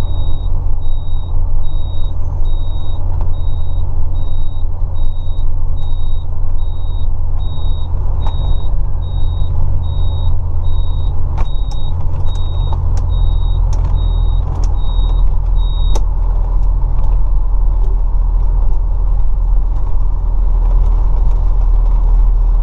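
Motorhome's engine and road noise heard from inside the cab while driving, a steady low drone. Over it, a high electronic beep repeats a little under twice a second and stops about two-thirds of the way through.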